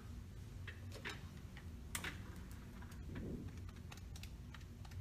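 Calculator keys being pressed one after another, a soft irregular click about every half second, over a low steady room hum.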